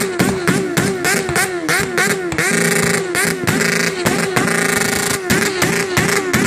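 Motorcycle engine revved hard over and over, its pitch surging up and dropping several times a second. About two and a half seconds in, and again about four and a half seconds in, the revs are held steady high for around half a second.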